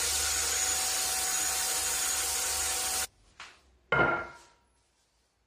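Wood lathe running while a spinning wooden spindle is hand-sanded with sandpaper: a steady rubbing hiss over the motor's hum, which cuts off about three seconds in. Shortly after, a turned wooden leg is set down on a wooden workbench with one sharp knock, the loudest sound.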